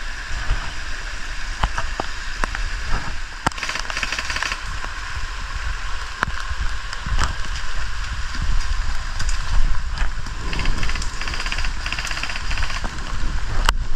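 Steady hiss of heavy rain, broken by scattered sharp clicks and two stretches of fast rattling, about four seconds in and again from about ten to thirteen seconds.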